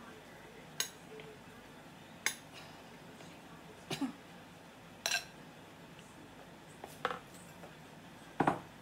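Kitchen bowls knocking together and a metal spoon clinking as cooked macaroni is tipped from one bowl into a large mixing bowl. There are about six separate sharp knocks, a second or more apart, the one near the end the loudest.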